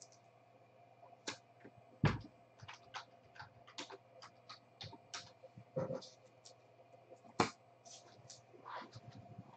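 Trading cards in rigid frames and holders being handled and set down: scattered light clicks and taps, with sharper knocks about two seconds in and about seven and a half seconds in, over a faint steady hum.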